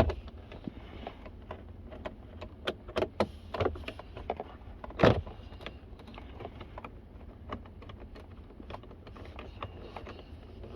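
Ford Excursion engine running at idle, a steady low hum, with scattered sharp clicks and one louder knock about five seconds in.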